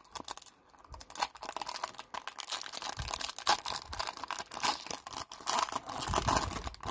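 Silver foil wrapper of a 2019 Panini Prime Racing trading-card pack crinkling and tearing as gloved hands rip it open. A dense crackle of many short rustles starts about a second in.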